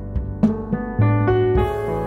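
Background music led by piano notes, with a sustained low bass note coming in about a second in.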